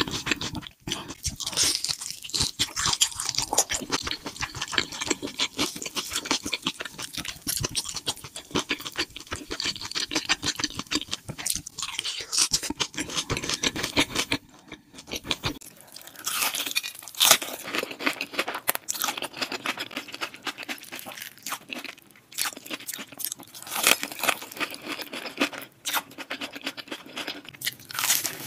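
Close-miked crunching and chewing of crisp fried food with a crunchy red crumb coating, dense crisp crunches with every bite and chew. About halfway through the sound turns thinner as a different recording takes over, and the crunching goes on.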